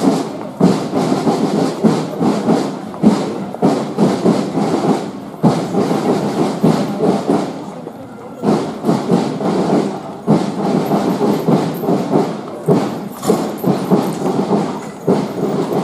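A procession passing on a paved street: the clatter of many footsteps with crowd noise and irregular knocks and thuds.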